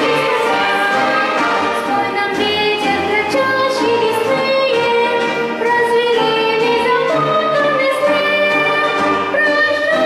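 A boy singing a solo song, accompanied by an orchestra that includes Russian folk instruments such as balalaikas and domras.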